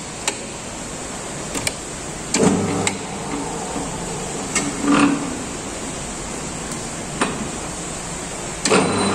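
Clicks and clunks from handling a Kent USA metal lathe's controls over steady heavy-rain noise, with two brief hums of the motor. Near the end the lathe motor starts and runs with a steady hum.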